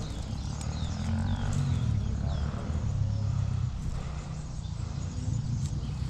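Footsteps of a person walking, over a steady low rumble of wind on the microphone, with a few faint high chirps in the first second or so.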